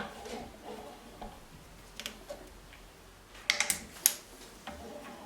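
A few sharp clicks and light knocks, as of parts or tools being handled on the small metal milling machine while it is not running: one at the start, one about two seconds in, then a quick run of three or four near the end followed by one more.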